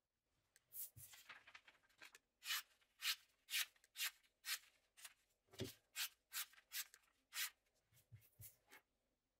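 A hand-made knife blade, ground from an old saw blade, slicing through a sheet of paper: a rapid series of about a dozen short, crisp swishes, roughly two a second, with a few soft low knocks among them. Clean, easy cuts like these are the usual test of a freshly sharpened edge.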